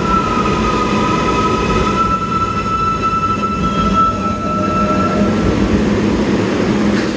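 New York City 7-line subway train of R188 cars pulling into a station and slowing to a stop. The wheels rumble under a steady high whine that fades out about five and a half seconds in.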